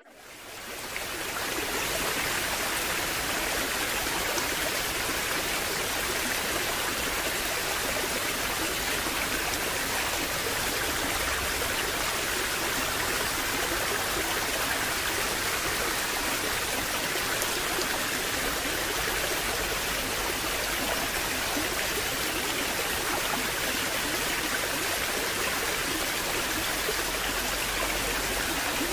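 Steady rushing water, like a stream, that fades in over the first second or so and then holds even.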